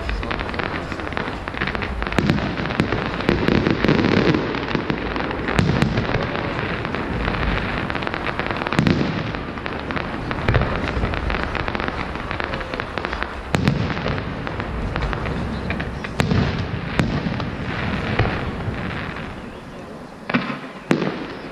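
Aerial fireworks display: repeated booms over dense crackling and sharp pops. It dies down near the end, with two last sharp bangs.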